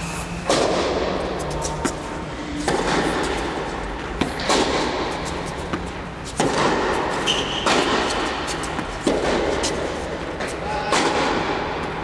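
Tennis balls struck with rackets in a rally on an indoor court: about seven sharp hits, one every one and a half to two seconds, each ringing on in the hall's echo.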